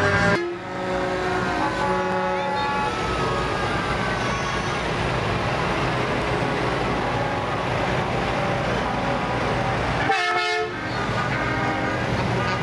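Truck air horns blowing as lit-up big rigs roll past, over the steady rumble of their engines and tyres. The horns sound for the first few seconds, one sliding down in pitch as it goes by, and again briefly near the end.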